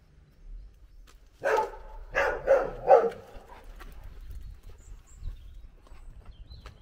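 A dog barking four times in quick succession, starting about a second and a half in.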